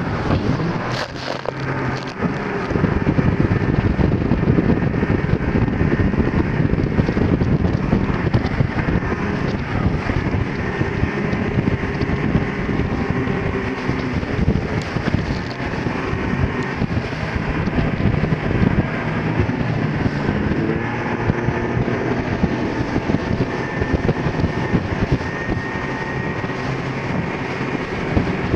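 The twin outboard engines of an RNLI Atlantic 85 inshore lifeboat running at speed, with heavy wind buffeting on the microphone. The noise grows louder about two seconds in and stays steady after that.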